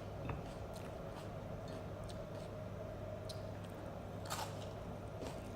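Faint chewing and eating noises, with scattered soft clicks and one sharper click about four seconds in, over a steady low hum.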